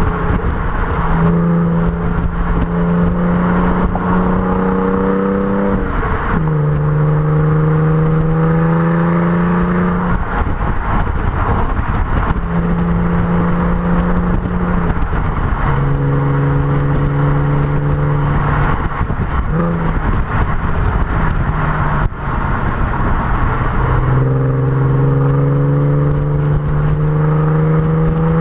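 Audi TT 3.2 V6 engine and exhaust under way. The engine note climbs slowly in pitch and drops sharply at gear changes about six, fifteen and twenty-four seconds in, over steady road and wind noise.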